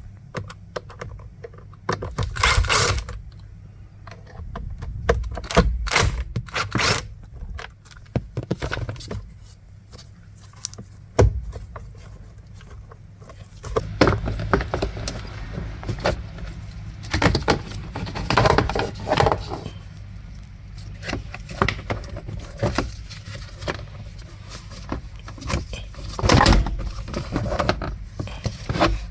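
Hand tools and metal parts clinking, tapping and scraping against the steering column's plastic parts while the screws holding the clock spring are taken out. The sounds are irregular, with a few longer scraping stretches.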